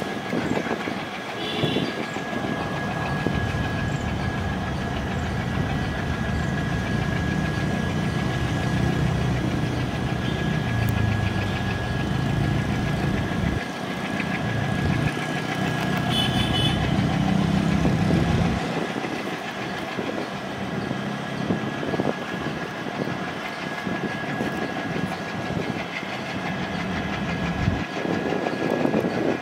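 ALCO WDM-3A diesel-electric locomotive's V16 engine running as the locomotive approaches hauling a freight rake. Its deep engine rumble drops away about 18 seconds in. A steady high-pitched tone runs underneath throughout.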